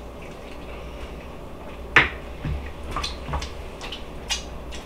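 Eating sounds of a man chewing a piece of chicken: wet mouth clicks and smacks, the sharpest about two seconds in, followed by a few softer ones.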